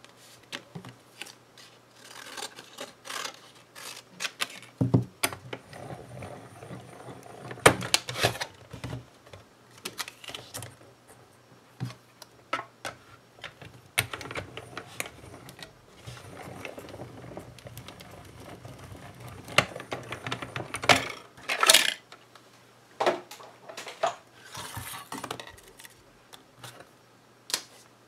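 A hand-cranked die-cutting machine runs a plate sandwich through its rollers, a low rumble lasting about a quarter of a minute. Sharp clicks and clacks come from acrylic cutting plates and a metal die being stacked and taken apart.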